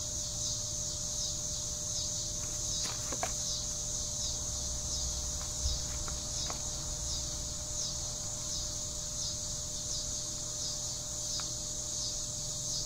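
Insect chorus: a steady high-pitched buzz that pulses about one to two times a second. A few faint clicks and taps come through as a fuel filter is unscrewed from an outboard motor.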